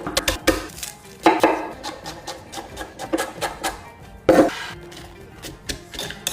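Kitchen utensils and dishes knocking and clattering during food preparation, with a few louder knocks about a second in and past the four-second mark, over background music.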